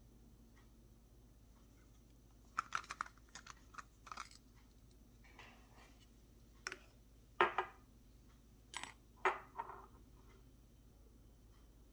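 Scattered clicks, light knocks and scrapes as a glass oil sprayer bottle and its stainless steel pump top are taken apart and set down on a stone countertop, and a small plastic funnel is fitted into the bottle's neck. The handling starts a few seconds in, with the loudest knocks about halfway through and shortly after.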